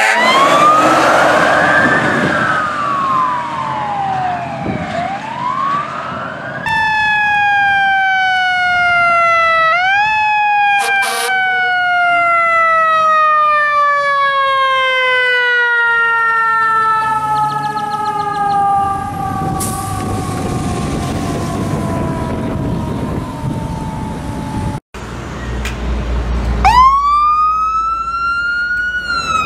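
Fire truck sirens in three short takes. First a siren wail rising and falling as an engine passes. Then a mechanical siren winding down slowly for about ten seconds, with one quick re-rev and a short blast. Last, a siren starting up and climbing in pitch as a brush truck pulls out.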